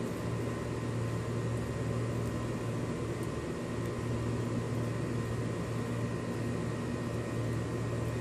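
Steady machine hum with an even hiss over it, unchanging throughout.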